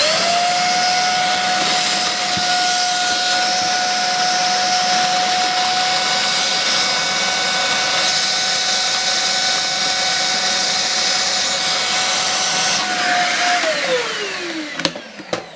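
Vacuum cleaner pulling the air out of a plastic vacuum storage bag through its valve. The motor spins up with a rising whine, runs steadily with a rushing hiss, and winds down with a falling whine near the end.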